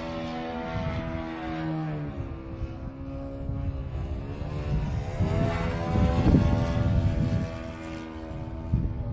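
Engine of a Sbach 342 profile RC aerobatic plane running in flight overhead. Its pitch falls about two seconds in, then dips and rises again past the middle as the plane manoeuvres. Wind buffets the microphone underneath.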